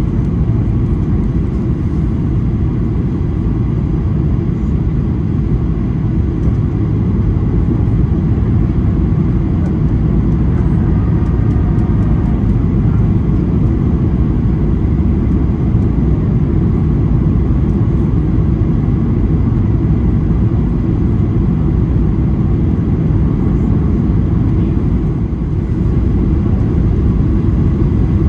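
Steady low roar of a Boeing 737-800's CFM56-7B engines and airflow, heard from inside the passenger cabin.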